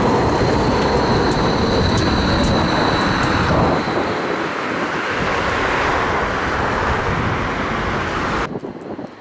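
Bombardier Flexity M8D-NF2 low-floor tram running on street track: a steady rumble of wheels on rail with a high whine over it. The sound changes abruptly about three and a half seconds in as the tram rolls close by, and drops sharply to quieter traffic noise near the end.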